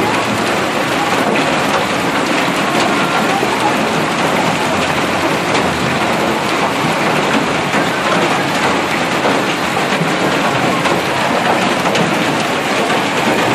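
Hailstones falling steadily and hitting the ground: a dense, even patter of small impacts that stays loud and unchanged throughout.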